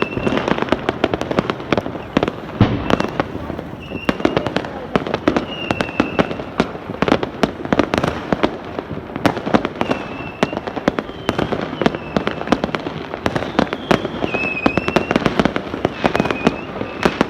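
Fireworks going off in a dense, continuous volley of bangs and crackling pops, with short high whistling tones recurring every second or two.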